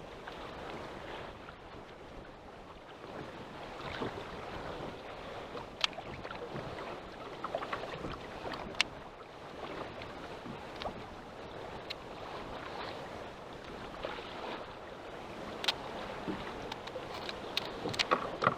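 Choppy water lapping against a small boat's hull, with wind on the microphone and a few sharp clicks and taps, more of them near the end.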